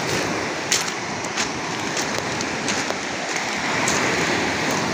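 Sea surf washing up and draining back over a pebble beach: a steady hiss with scattered sharp clicks of stones.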